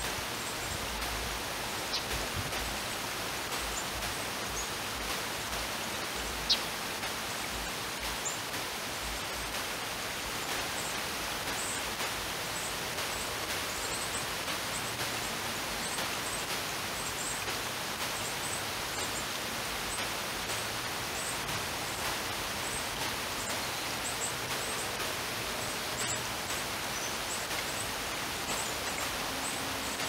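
Steady outdoor background hiss with faint, high, short chirps scattered throughout, and a sharp click about six and a half seconds in.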